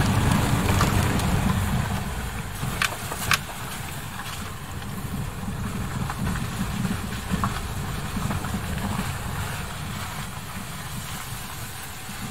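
Car driving slowly along a wet, rutted dirt road, heard from inside the cabin: a low engine and tyre rumble, with a few sharp knocks, the two loudest about three seconds in.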